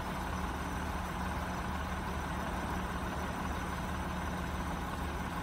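Car engine idling steadily, a low even hum heard from inside the car's cabin.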